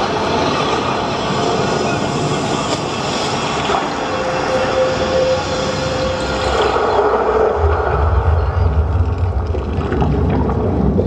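Loud rushing, aircraft-like sound effects from a 3D-mapping show's soundtrack over loudspeakers, with a held tone partway through and a deep rumble coming in about two-thirds of the way in.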